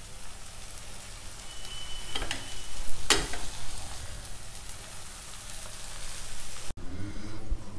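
Millet noodles sizzling in a hot metal pot as they are tossed and stirred with a spatula, with one sharp knock of the spatula against the pot about three seconds in.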